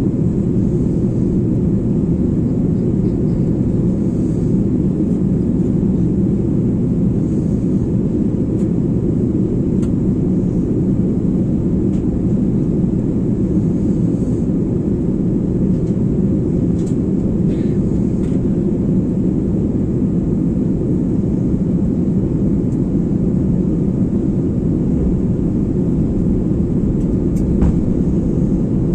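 Steady low cabin roar of an Airbus A330 on approach, heard inside the cabin at a window seat over the wing: engine and airflow noise with no change in level.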